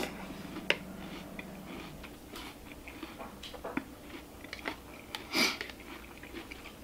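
A person chewing a mouthful of cereal with milk: soft, irregular crunching and small clicks, with the metal spoon working in the bowl. One louder crunch or clink comes about five and a half seconds in.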